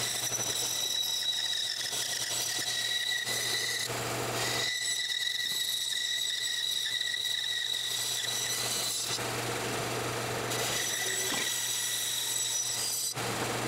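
Bandsaw running and cutting through a glued-up wood block, played back at four times speed, so it sounds as a steady high whine over a low hum. A few stretches of louder hiss come in, about three seconds in, around nine seconds and near the end.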